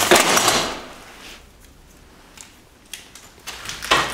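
Loud rustling and clattering of objects and debris being handled, lasting about a second at the start, with a few light knocks after it and a second, shorter rustle near the end.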